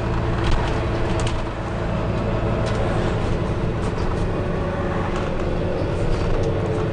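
Volvo B9TL double-decker bus heard from the passenger cabin while under way: a steady diesel engine drone with road noise and a few light rattles. The engine note drops slightly in the second half.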